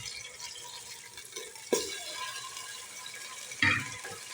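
Chicken breast and onion sizzling in hot oil in a pressure cooker pot, a steady hiss, with two short knocks about 1.7 and 3.6 seconds in.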